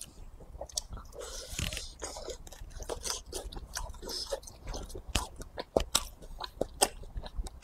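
Close-miked chewing of a grilled sausage: a bite into it, then irregular wet clicks, smacks and crackles of the mouth chewing.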